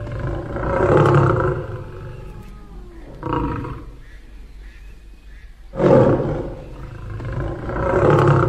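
A lion roaring: several separate roars, each swelling and then fading, about four in all.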